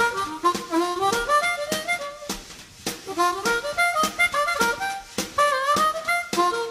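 Background music: a harmonica melody with bending notes over a steady beat.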